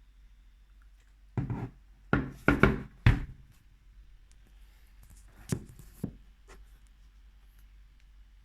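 Dell XPS 15 9570 laptop's CPU fan giving short bursts of mechanical rattle, the sign of a fault in the fan. Four rattles come close together early on, then two fainter ones a couple of seconds later.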